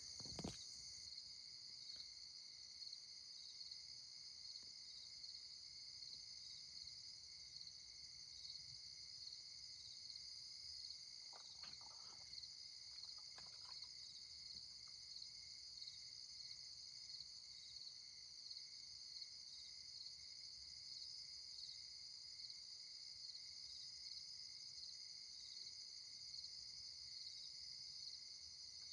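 A faint, steady chorus of crickets chirping in the night.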